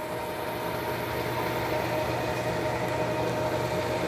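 South Bend Heavy 10 lathe running under power: a steady motor and gear hum with a faint higher whine, unchanging throughout.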